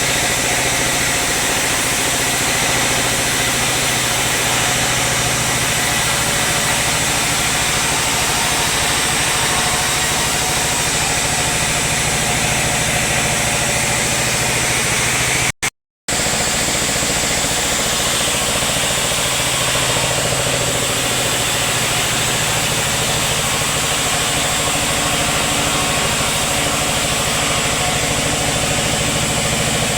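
Sawmill machinery running steadily: an even mechanical hum with a broad hiss over it. The sound cuts out completely for about half a second just past the middle, then resumes unchanged.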